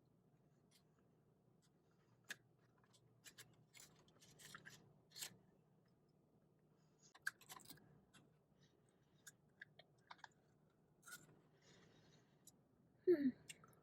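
A person chewing a mouthful of soft taco, faint wet mouth clicks and crackles at irregular moments. Near the end comes a short hum that falls in pitch, the loudest sound here.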